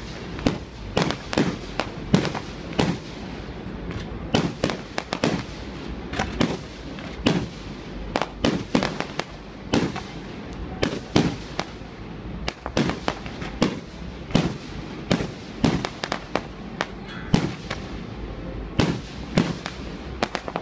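Fireworks display: aerial shells launching and bursting in a rapid, irregular series of sharp bangs, about one or two a second.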